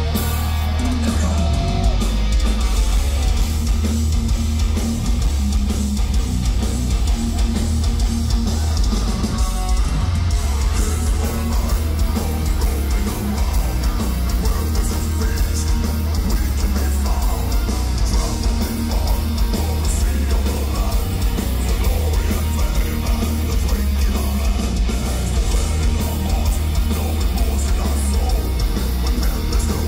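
Melodic death metal band playing live, with distorted electric guitars, bass guitar and drums sounding continuously and loud, with a heavy low end.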